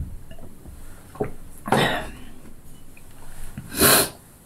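A woman drinking water from a glass, followed by breathy exhalations: one just under two seconds in and a louder one about four seconds in.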